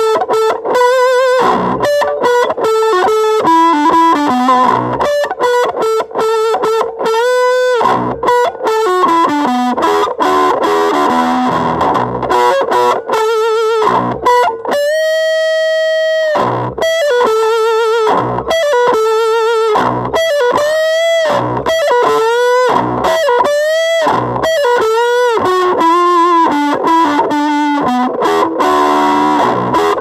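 Electric guitar played through a Weird Noise Pedals What The Fuzz fuzz pedal: a run of short distorted notes that waver in pitch, with one note held for about two seconds about halfway through.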